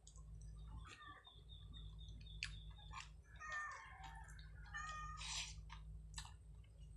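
Domestic animals calling in the background: a few pitched calls in the middle, with several sharp clicks and a steady low hum underneath.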